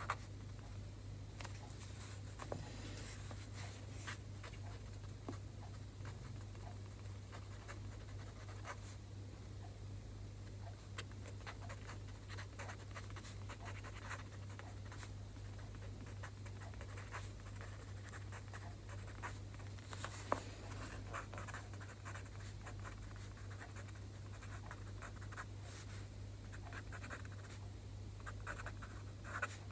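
Pen handwriting Chinese characters on a sheet of paper: soft scratching of the tip across the paper, with small ticks as strokes start and lift, over a steady low hum.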